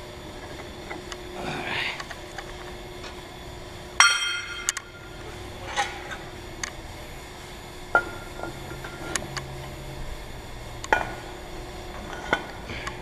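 Cast-iron weight plates clanking against each other and against the steel counterweight bar of a glass-lifting stand as they are taken off and put back on. About seven sharp metallic clanks, some ringing briefly; the loudest comes about four seconds in.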